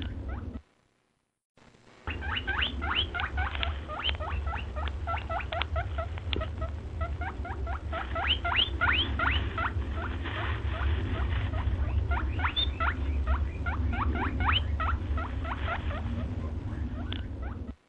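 Small animal squeaking: quick, short rising chirps, several a second, over a low hum. The sound cuts out briefly about a second in and again near the end.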